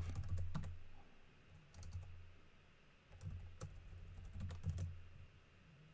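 Typing on a computer keyboard: scattered key clicks in short, irregular runs.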